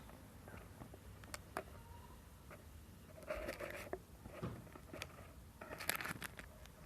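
Unboxing: hands handling packaging and a mould, giving light clicks and taps. There are two short bursts of crinkling, about three seconds in and near the end.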